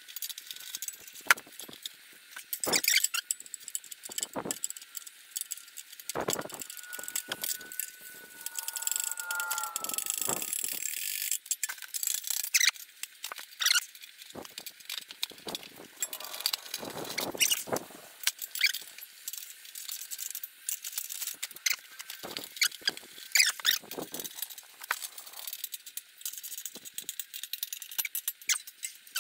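Hand tools and metal fasteners clicking and clinking irregularly as parts are refitted on a lawn tractor engine, with a squeak of a few seconds, falling slightly in pitch, about a third of the way in.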